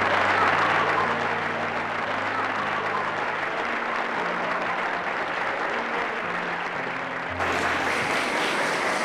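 Audience applauding steadily, with low sustained notes of background music underneath.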